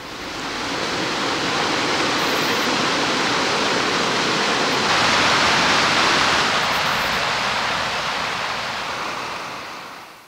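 Steady rush of water, a dense even hiss like a river or waterfall. It swells in over the first second, is loudest around the middle, then fades and cuts off at the end.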